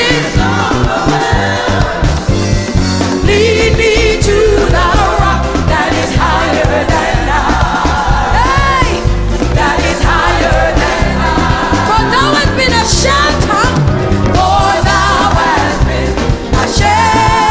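Music: a song with a singing voice over a steady, pulsing bass beat.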